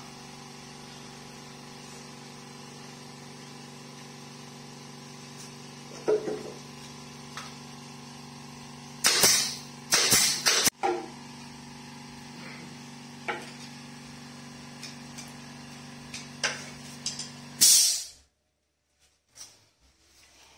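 Pneumatic brad nailer firing in a quick run of about four sharp shots partway through, driving nails into the pinewood panels of a miniature truck cab. Under it an air compressor hums steadily, then stops abruptly near the end. Fainter knocks of wooden pieces being handled come in between.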